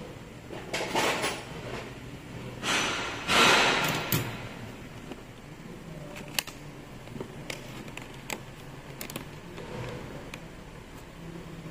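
Hand handling of an angle grinder's armature and bevel gear in a steel support cylinder: two rough scraping rushes in the first four seconds, the second louder, then scattered light metal clicks and taps.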